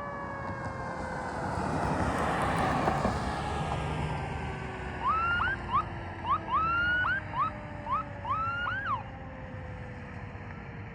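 Fire ladder truck passing on an emergency response with its sirens on: engine and road noise swell and fade over the first few seconds while a siren tone slowly falls in pitch as it winds down. Then a run of about nine short rising siren whoops comes between about five and nine seconds in.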